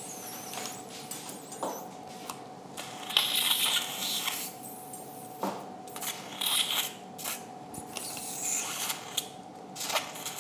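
Steel surgical instruments clicking and a bone rongeur biting through nasal bone as the nasal cavity is opened, with a few bursts of suction hissing and slurping in the wound. A faint steady tone runs underneath.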